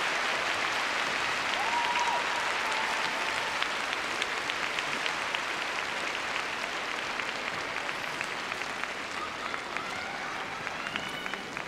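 Large arena crowd applauding, the applause slowly fading, with single claps standing out more toward the end.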